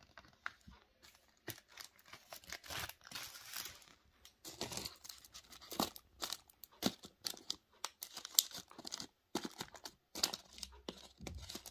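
Paper and foil packaging of a box of pralines crinkling and rustling as it is handled: a quilted paper cover sheet and a gold-foil tray with its cups. The crackles are irregular and come in clusters, with short pauses between them.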